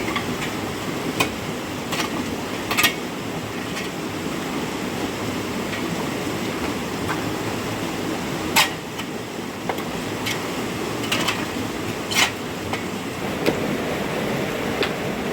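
Steady rushing noise of heavy rain and running water, with scattered sharp knocks, about eight of them at irregular intervals, from building work such as hammering.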